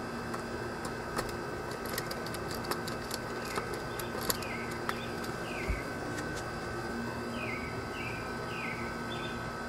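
Light clicks and taps of a screwdriver turning terminal screws and wires being seated in a small plastic terminal block, over a steady background hum. A bird calls in short falling chirps, a few at a time, starting about a third of the way in and again near the end.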